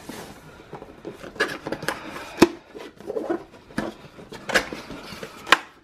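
Hands handling and turning a cardboard product box, with rustles, scrapes and light knocks of the box against the tabletop; two sharper clicks stand out, about two and a half seconds in and near the end.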